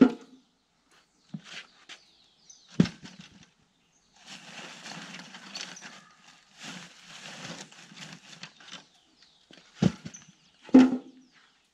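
Scattered odds and ends handled by hand and dropped into buckets: a few sharp knocks and clunks, two of them near the end and the loudest of all, with several seconds of rustling and scraping in between.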